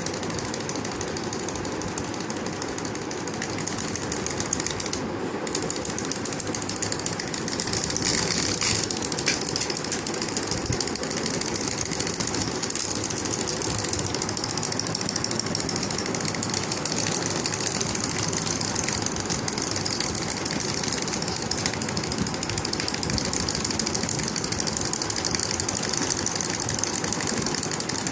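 Wind-up fuzzy chick toys hopping across a tabletop: a steady rapid clatter of their clockwork mechanisms and plastic feet tapping the surface.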